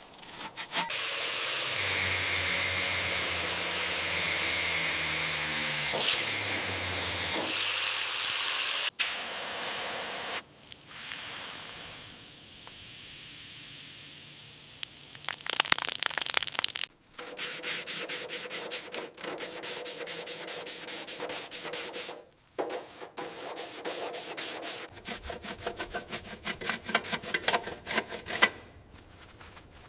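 Sanding and rubbing on car parts in several cut-together takes: a steady sanding run over a low motor hum for about eight seconds, a quieter stretch of rubbing, then quick, evenly repeated scraping strokes through most of the second half.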